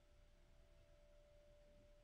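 A grand piano's major-second dyad dying away, very faint: a single pure middle-register tone lingers and slowly fades, with no new note struck.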